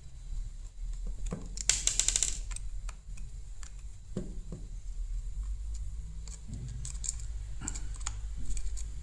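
Small screws being undone and the smart bulb's plastic parts handled: scattered clicks and taps, with a quick run of rapid clicks about two seconds in, over a low steady hum.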